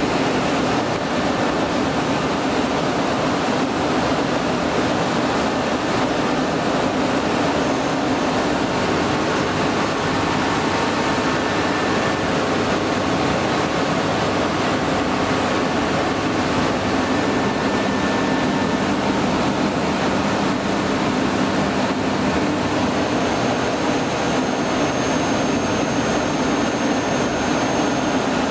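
DMG CTX 510 Eco CNC turning center running in its enclosure: a steady hum from the spinning spindle and chuck over a rush of coolant spray. Faint thin whines come and go over it.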